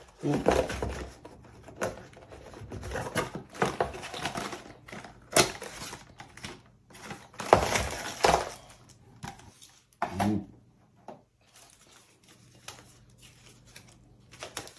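Cardboard box and packaging being handled: the box and its inner tray lifted and shifted, with paper and plastic rustling and scraping in irregular bursts. The loudest bursts come near the start and about seven to eight seconds in, and it gets quieter after about ten seconds.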